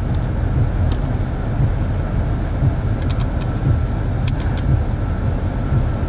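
2000 Toyota Avalon's V6 idling under full accessory load, with the climate blower running, heard from inside the cabin as a steady low rumble. There is no belt squeal: the AC/alternator belt has just been tightened. A few light clicks come from the climate-control knobs.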